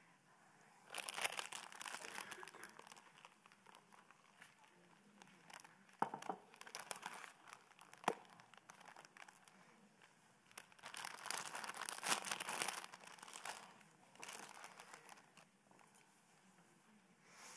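Packaging crinkling and rustling in several bouts as it is handled, with two sharp knocks of something set down on a table in between.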